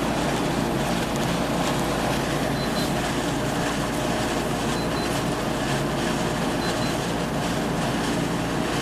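DeLonghi 12,000 BTU portable air conditioner running in cooling mode: a steady rush of fan air over a low, even hum.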